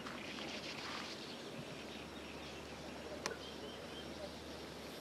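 Steady outdoor background noise with a few short, high bird chirps just after the middle, and one sharp click a little after three seconds in.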